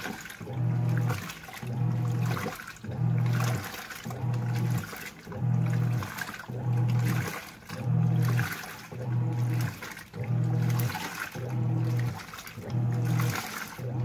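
Giantex portable washing machine (EP22761) in its wash cycle: the wash motor hums in short pulses a little more than once a second as it drives the clothes back and forth, with water and laundry sloshing in the tub between pulses.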